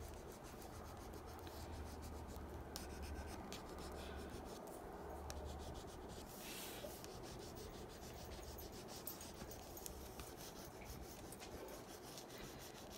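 Faint scratching of a 10B water-soluble graphite stick scribbling across sketchbook paper.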